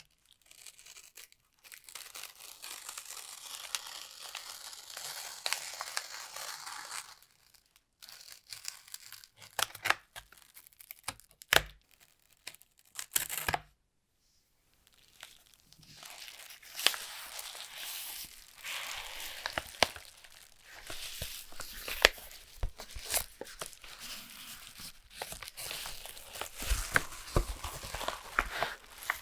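Phone box packaging being torn and crinkled by hand: long rustling, tearing stretches with sharp clicks and taps between them, broken by short pauses about a quarter and about halfway through.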